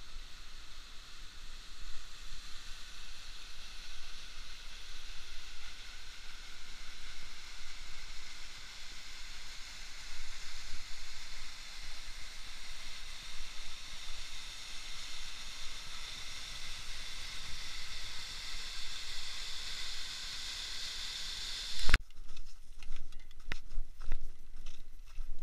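Steady hiss of a mountain waterfall's rushing water, slowly growing louder. It cuts off abruptly about 22 seconds in, and irregular footsteps crunch on a snowy path.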